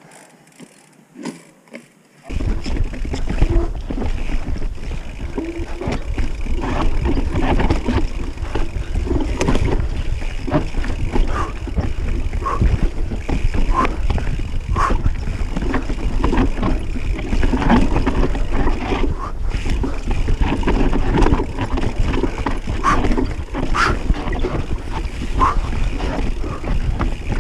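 Mountain bike descending a rocky trail: wind buffeting the camera's microphone as a loud rumble, with frequent knocks and rattles from the bike over stones and roots. It starts suddenly about two seconds in, after a quiet start.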